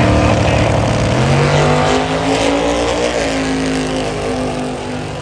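Drag-racing car launching off the starting line at full throttle and accelerating away down the strip. The engine note rises sharply, drops in pitch about a second in and climbs again, then slowly fades with distance.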